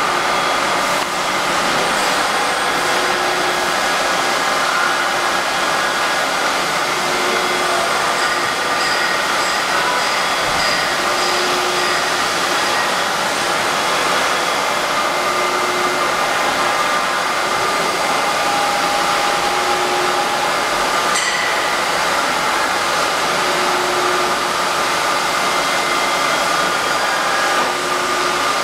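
Large CNC bed milling machine (Droop & Rein FWL 1403) running under power: a steady, even mechanical noise of its motors and drives, with a faint short tone recurring about every two seconds.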